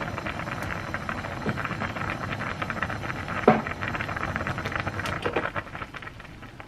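Pot of soft tofu stew boiling hard on a gas stove, bubbling and popping in a dense steady crackle. A sharper knock comes about three and a half seconds in.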